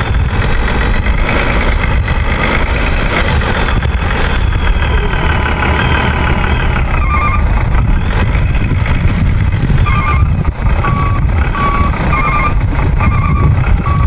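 Truck reversing beeper sounding in short repeated beeps, about one a second, starting about halfway through, over a steady low rumble. A whining tone that wavers in pitch runs through the first half.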